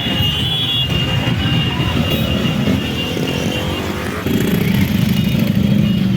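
Motorcycle engines running, a rapid low pulsing that steps up louder with a steadier pitch about four seconds in.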